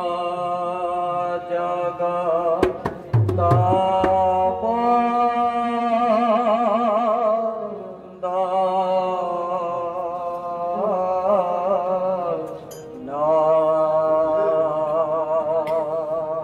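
Men singing a kirtan chant together in long held, wavering notes, with brief breaths between phrases. A few barrel-drum strokes land about three seconds in.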